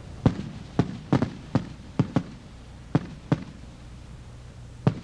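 Fireworks going off: about ten sharp bangs at irregular intervals, crowded into the first three and a half seconds, with one more near the end.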